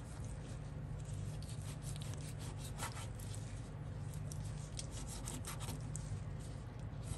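Chef's knife cutting through raw beef liver against a wooden cutting board, trimming out a tough vein: a string of small clicks and scrapes of the blade on the board. A steady low hum runs underneath.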